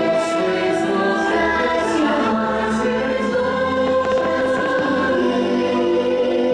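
Fireworks show soundtrack music: a choir singing long held chords over orchestral backing, steady in level.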